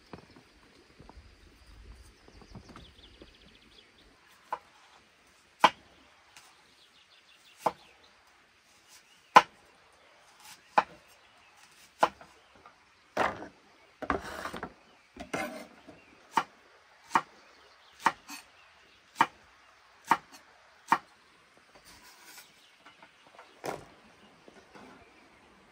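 Repeated sharp chopping strikes on wood, about one a second, beginning a few seconds in, with a couple of longer scraping strokes near the middle.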